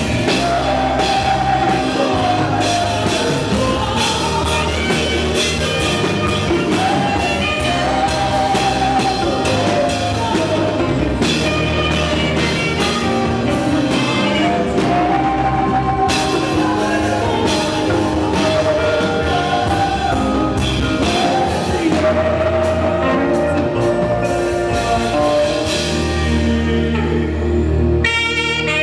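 Live up-tempo African gospel praise music: a saxophone plays the melody over a drum kit and band. Near the end a single held saxophone note rings out clearly.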